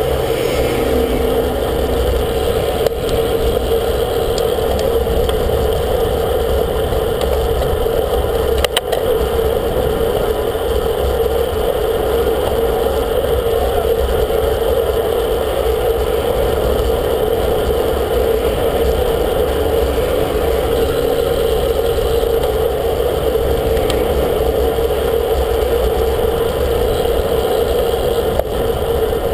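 Steady rush of wind and road noise picked up by a bike-mounted camera riding at speed along a road, with a single sharp knock about nine seconds in.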